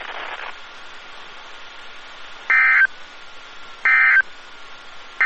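NOAA Weather Radio SAME end-of-message data bursts: three short, loud, buzzy digital bursts about a second and a half apart, marking the close of the weekly test alert. A brief radio hiss comes before the first burst.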